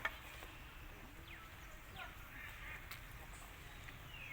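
A sharp click at the start, then two short, faint, high chirps that fall in pitch, animal calls over a low background hum.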